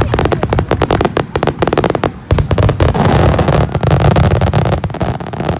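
Fireworks going off in a dense, rapid string of sharp cracks, which thicken into a continuous crackle a little after two seconds in.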